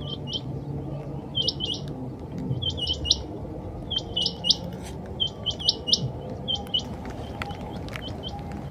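Rain quail calling: a repeated burst of two or three short, sharp high notes, about one burst a second, over a steady low noise.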